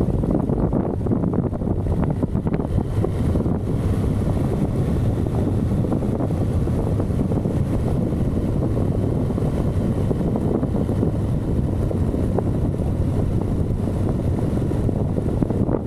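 Steady wind rush buffeting the microphone of a camera on a motorcycle riding at speed, with the bike's engine running evenly underneath.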